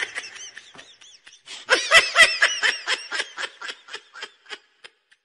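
High-pitched laughter in a fast run of 'ha-ha-ha' pulses: a short run at the start, then a louder, longer run from about a second and a half in that gradually fades away.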